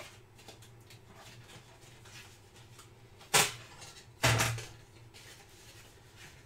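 Quiet handling of paper and packaging, broken by two short, loud knocks about a second apart near the middle.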